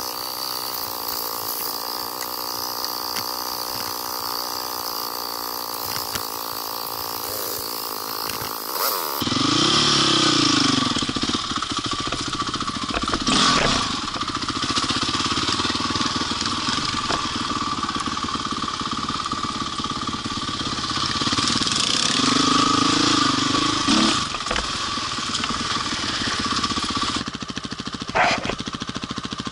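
Honda CRF450R's single-cylinder four-stroke engine heard from on board while trail riding. It runs steadily for the first nine seconds, then revs up and down with the throttle, with a couple of sharp knocks along the way.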